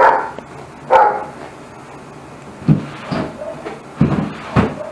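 A dog barking: about six short, separate barks over a few seconds.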